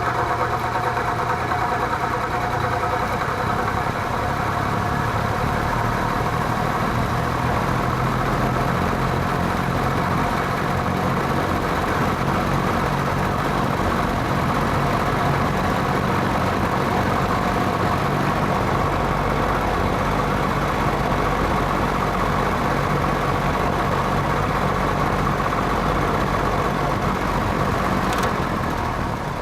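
Vintage Penncrest (rebadged Lakewood) metal box fan motor running steadily on low with a rattle, which the owner puts down to a bad rear thrust washer. Near the end a click and the sound begins to drop as the fan is switched off.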